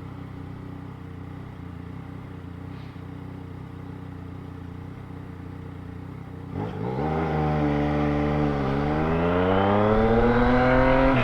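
Yamaha Tracer 900 GT's three-cylinder engine through a 3-into-1 aftermarket exhaust. It runs steadily at low revs for about six seconds, then opens up and accelerates, the exhaust note getting louder and rising in pitch. The note dips briefly about two seconds later and then climbs again until it drops at the very end as the rider shifts up.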